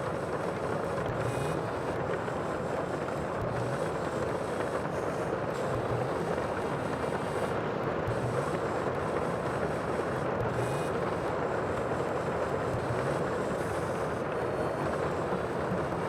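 Steady, even rushing noise of the sea, with no separate wave breaks standing out.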